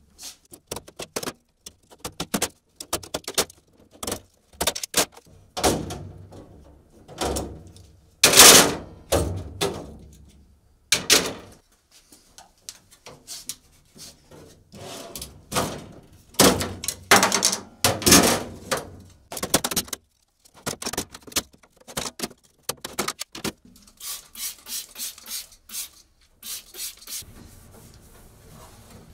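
Steel ball-bearing drawer slides being unhooked from the slotted side panels of a steel tool cabinet and handled: many irregular metallic clicks, clanks and rattles, some of them ringing briefly. Near the end there is a soft rubbing as a rag wipes the cabinet floor.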